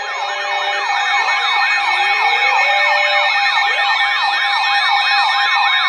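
Weather alert radio alarms sounding for a flash flood warning: a siren-like tone that falls over and over, about three sweeps a second, over steady alert tones.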